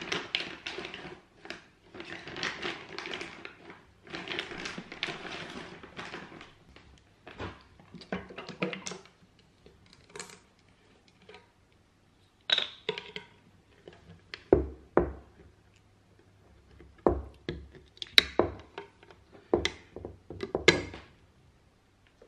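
Crinkling plastic packaging for the first few seconds, then scattered clicks and, in the second half, a series of sharp knocks from a metal tin and its screw cap being handled and set down on a wooden stair.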